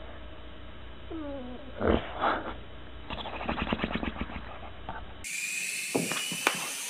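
A sleeping mastiff-type dog makes sounds in its sleep: a falling whine just after one second, two muffled woofs near two seconds, then a fast fluttering growl-snore. About five seconds in this gives way to the high steady whine of a toy helicopter's small motor, with a few clicks.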